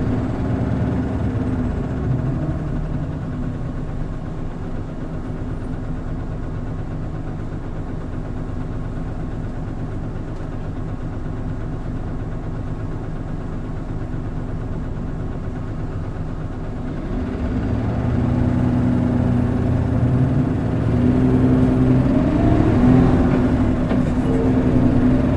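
Hino Blue Ribbon City Hybrid city bus heard from inside the cabin: its diesel engine runs steadily and low, then from about 17 seconds in grows louder as the engine works harder. A rising whine comes in over the engine near the end.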